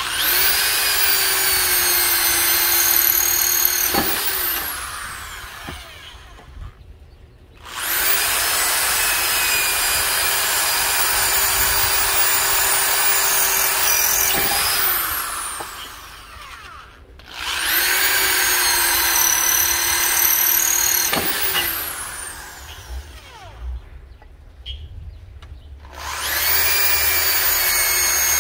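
Corded electric drill boring holes through a terracotta clay roof tile, in four runs. Each time the motor winds up to a steady whine with the bit grinding through the clay, then winds down in the gap before the next hole.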